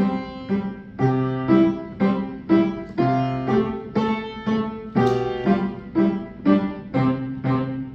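Piano playing a simple beginner's piece: evenly spaced notes about two a second, with a low bass note struck about every two seconds.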